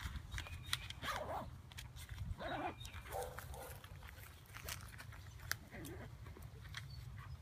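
A dog barking a few short times: once about a second in, twice between two and a half and three and a half seconds, and once more near six seconds. Paper and a backpack rustle and click as they are handled.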